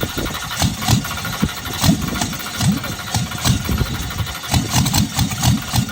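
Drag car's engine running roughly, with loud, uneven firing pulses: a cold-blooded engine struggling to run cleanly.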